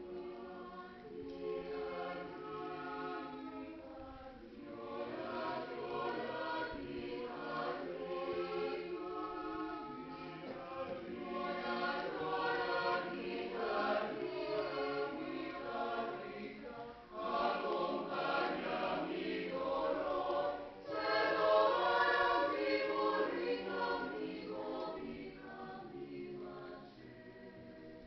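Mixed choir of men and women singing in harmony, growing louder to its fullest in the second half with two short breaks, then fading near the end.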